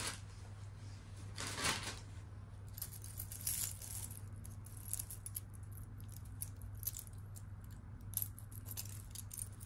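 Costume jewelry being handled and sorted: scattered small metallic clicks and light jingling of chains, beads and a metal cuff bracelet, with a slightly louder clack about a second and a half in, over a steady low hum.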